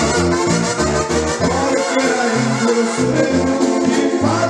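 Karaoke backing track playing an instrumental passage: a brass melody over a bouncing bass line, with no singing.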